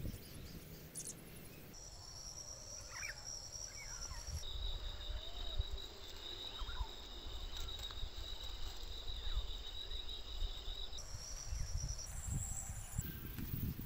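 Insects calling steadily in high, even tones, with a few short bird chirps over them and a low rumble of wind on the microphone.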